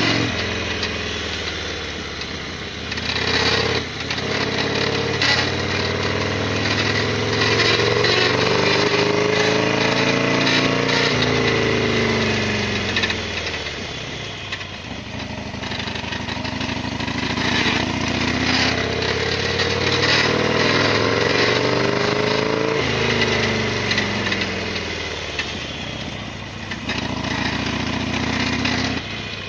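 Harley-Davidson Sportster XL1200R's air-cooled 1200 cc V-twin running on the road, heard from a helmet chin-mounted action camera. Its engine speed rises and falls in long sweeps and changes abruptly twice.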